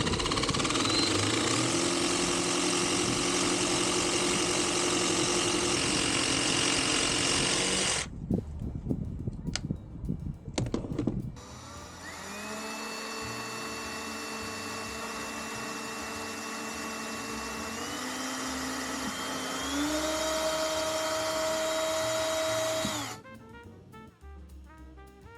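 Power tools working wood for a shelf: a tool runs loudly for about eight seconds, a few knocks follow, then a motor runs steadily, stepping up in pitch twice before cutting off suddenly near the end.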